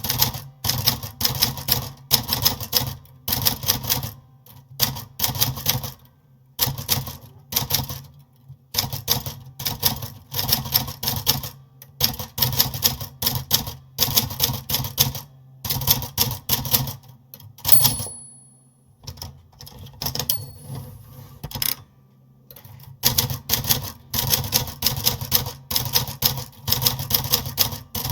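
Typewriter being typed on: fast runs of key strikes in bursts with short pauses between them. About two-thirds of the way through, two short high-pitched rings sound in the gaps between the runs of typing.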